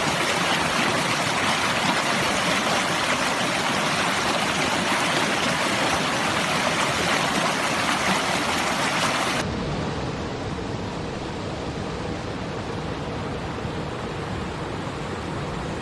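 Fast-flowing stream rushing steadily over rocks. About two-thirds of the way through, the sound cuts abruptly to a quieter, duller rush with more low rumble.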